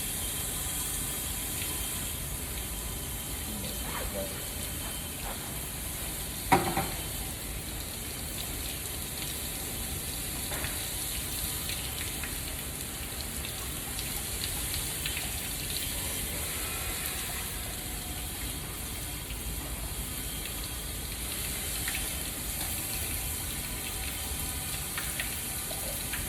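Water from a hose spraying and splashing inside a drained steam boiler's waterside, a steady hiss as rust and scale are rinsed out. One sharp knock about six seconds in.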